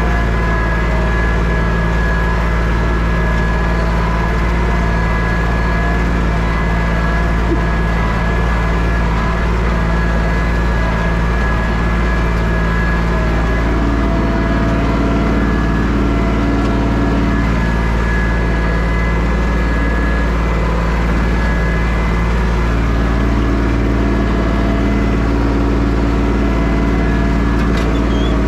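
Tractor engine running steadily, pulling a plow to dig potatoes.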